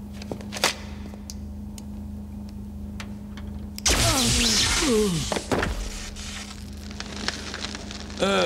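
High-voltage electrocution sound effect: a loud crackling zap about four seconds in that lasts about two seconds, with falling pitched sweeps, over a steady electrical hum from the apparatus. A few sharp clicks come before it.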